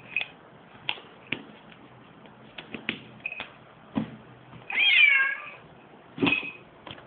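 A house cat gives one long meow, falling in pitch, about five seconds in, amid scattered light knocks and taps. It is a cry from a confrontation between two cats.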